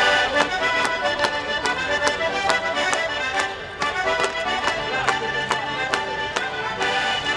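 Accordions playing a traditional folk dance tune with a steady beat.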